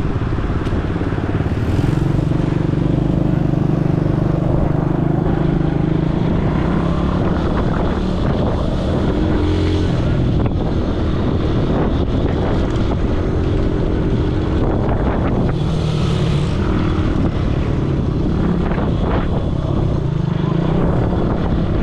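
ATV engine running while being ridden, a steady drone whose pitch shifts up and down several times with the throttle, over a dense rushing noise.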